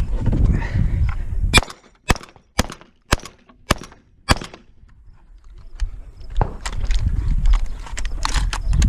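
Six gunshots from a semi-automatic firearm in a steady string, about two a second, the first the loudest. Low rumbling noise before the shots, and again from about two-thirds of the way in, with fainter clicks in it.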